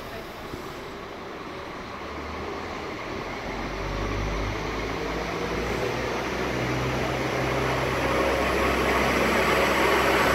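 Diesel multiple unit of class 622 (Alstom Coradia LINT) pulling out of a platform. Its underfloor diesel engines hum low and grow steadily louder from about two seconds in as the cars roll past.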